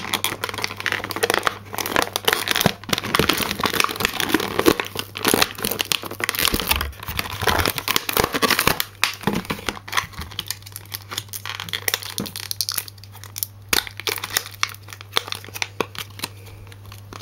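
Clear plastic blister packaging of a boxed toy doll crinkling and crackling as it is pried and worked loose, dense at first and thinning out to scattered crackles over the second half.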